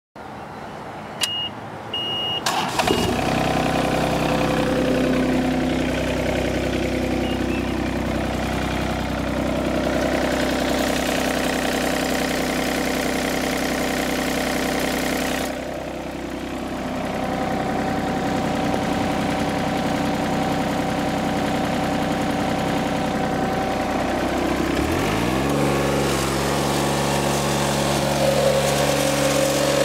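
Yanmar 3TNE82A three-cylinder diesel engine of a John Deere 3215B fairway mower starting up: a couple of short high beeps, then the engine catches about three seconds in and runs steadily. Around 25 seconds in it revs up and holds at a higher speed.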